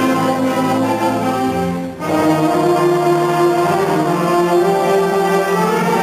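High school concert band of woodwinds and brass playing held chords. The sound breaks off for an instant about two seconds in, then the chords resume.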